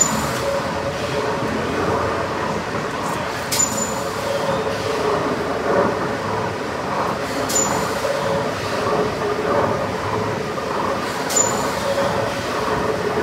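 Large triple-expansion steam engine running slowly, heard from beneath its 32-tonne flywheel: a steady mechanical running noise with a faint hum. A sharp click with a brief high ring repeats about every four seconds.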